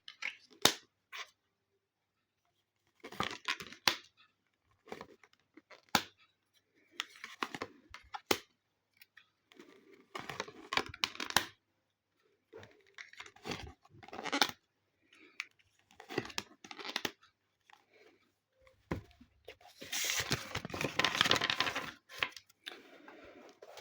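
A deck of tarot cards being shuffled and handled, in short dry rustling and snapping bursts with gaps between them, and a longer run of shuffling about twenty seconds in.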